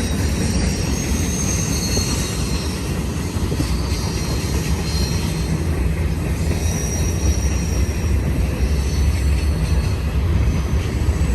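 Freight train of empty intermodal well cars rolling past: a steady heavy rumble of steel wheels on rail, with thin high wheel squeals coming and going over it.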